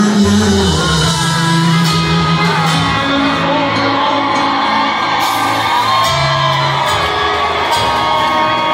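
Country music: a male voice singing over a full band.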